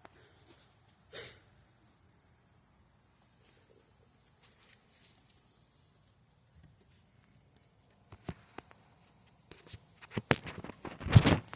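A steady high-pitched insect chirring in the background, with a burst of close knocks and rattles over the last few seconds.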